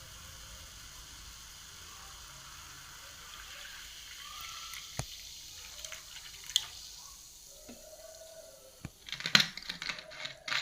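Carbonated cola fizzing with a steady hiss of bubbles, then a few single clicks and, near the end, a loud burst of sharp clicks and crackles.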